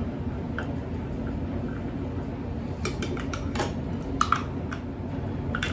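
Metal spoon stirring a thick paste in a drinking glass, with sharp clinks against the glass that come more often in the second half. A steady low rumble runs underneath.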